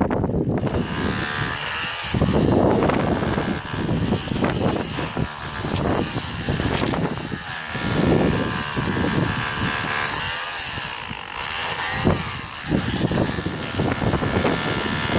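A motor running steadily, with an uneven low rumble swelling and fading over it.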